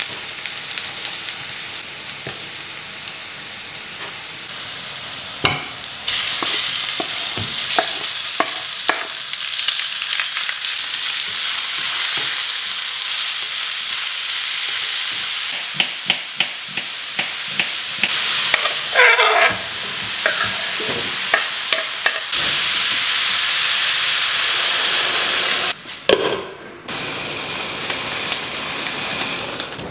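Food sizzling as it fries in a pan, with a utensil stirring and clicking against the pan now and then. The hiss jumps in level abruptly a few times.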